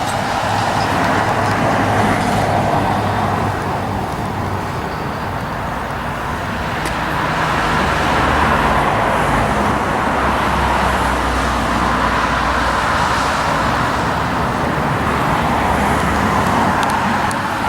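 A small plane's engine droning steadily overhead as it flies past, its pitch drifting slightly up and back down.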